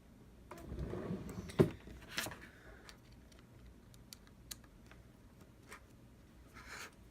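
Small parts and tools being handled on a workbench during a phone repair: rustling and knocks, with one sharp knock about one and a half seconds in, then a few light clicks.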